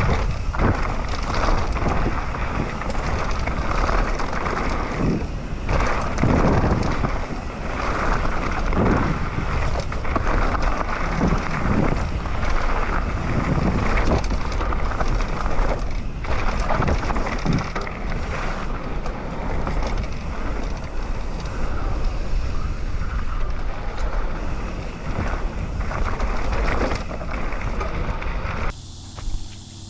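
Mountain bike riding down a trail: wind rushing over the microphone with tyre noise and frequent knocks and rattles from the bike. The noise drops off suddenly near the end.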